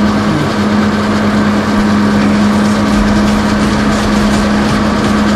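Loud, steady machine drone in a metal fabrication shop, with a constant low hum that drops out briefly just after the start.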